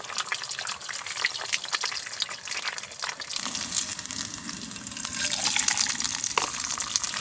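Food sizzling in a frying pan, a dense crackle that grows louder about halfway through.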